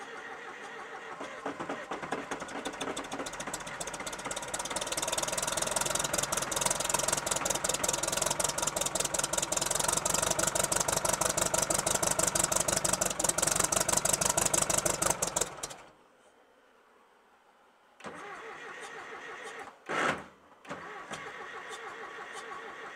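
1970 Case 850 dozer's four-cylinder diesel being cranked over cold with a propane torch flame blowing into the open intake. It catches and builds into a fast, even, rough-running clatter. The engine has one low-compression cylinder and lazy injectors. The sound cuts off suddenly about 16 s in; after a short gap a quieter steady sound returns, with one brief loud burst about 20 s in.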